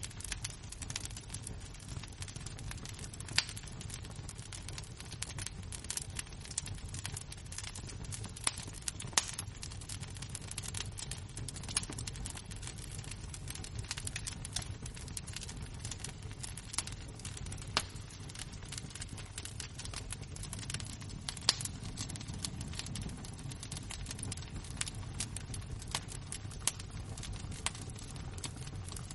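Glowing embers crackling: irregular sharp pops and snaps, a few much louder than the rest, over a steady low rumble.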